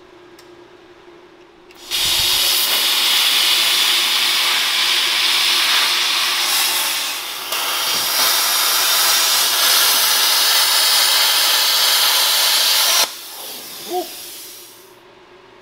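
Plasma cutter cutting through a car's steel shock tower: a loud, steady hiss that starts about two seconds in, dips briefly about halfway, and cuts off sharply near the end, leaving a softer hiss that fades over the next two seconds.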